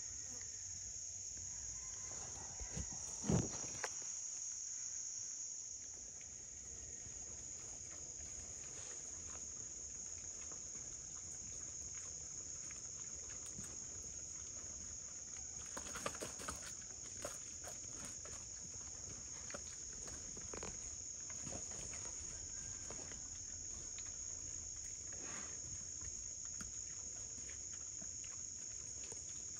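Steady high-pitched chorus of insects in a swamp forest. A single sharp knock comes about three seconds in, and a short cluster of rustling clicks about halfway through.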